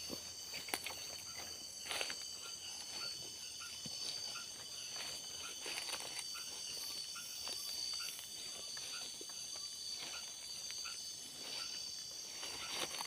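Night insect chorus: a steady high-pitched trilling that never lets up. A faint lower chirp repeats about every half second through the middle, and scattered footsteps and rustles come from walking through undergrowth.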